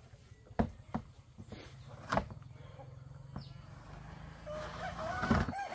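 A rooster crowing, one long held call that starts near the end. A low steady hum runs underneath, with a few sharp knocks in the first half.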